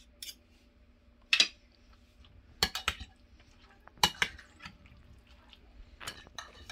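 Metal spoons clinking and scraping against a glass bowl while stirring a wet chicken-and-egg filling. The clinks come in short clusters every second or two, the loudest about one and a half seconds in.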